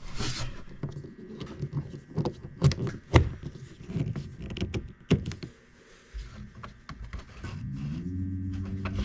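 Scattered clicks and knocks from handling gear around the boat's batteries and charger. About three-quarters of the way through, a low, drawn-out pitched sound begins and steps upward.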